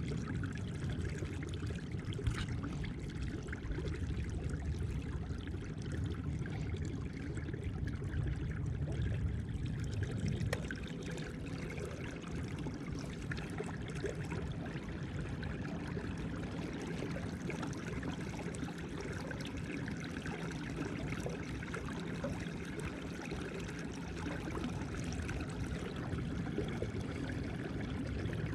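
Water rushing and trickling steadily along the hull of a small angler kayak under way on an electric trolling motor.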